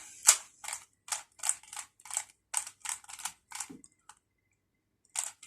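Rubik's cube layers being twisted in quick succession, each turn a short plastic clack, about ten in a row, a short pause, then more turns near the end.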